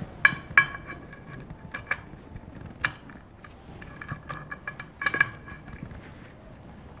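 Scattered metallic clicks and clinks from a small metal hand-held tile-breaking tool being set on a scored vitrified tile and its screw knob being turned, with the sharpest clinks in the first second and again about five seconds in.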